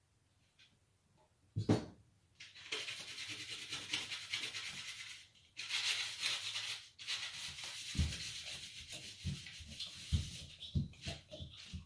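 A single thump, then rubbing and scraping for several seconds. From about eight seconds in, a run of dull thumps follows as bare feet land on a tile floor.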